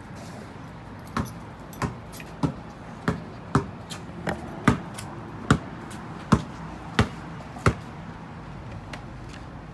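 A series of about eleven sharp knocks or taps on a hard surface, roughly one every two-thirds of a second, over a steady background hiss.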